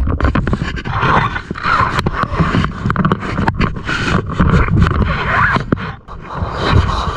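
Heavy panting breaths close to the microphone, mixed with scraping and knocking from handling gear on the motorcycle.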